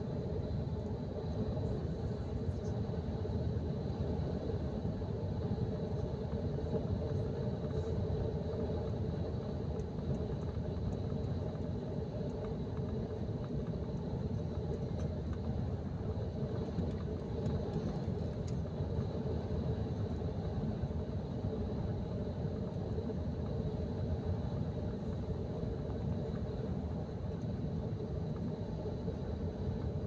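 Steady road and engine rumble inside a vehicle cruising at motorway speed, with a faint steady high tone above it.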